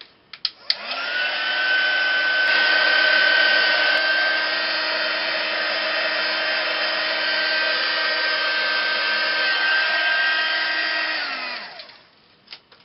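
Craft heat gun switched on after a couple of clicks, its fan motor spinning up with a rising whine about a second in, then running steadily with rushing air while it dries wet texture paste. Near the end it is switched off and winds down.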